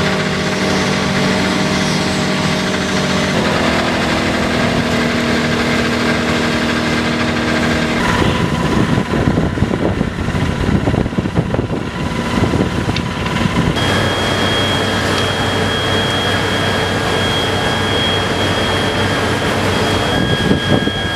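Fire engine running steadily, driving its water pump to feed the hoses, with rougher, noisier spells in the middle and a thin high steady whine from about two-thirds of the way in.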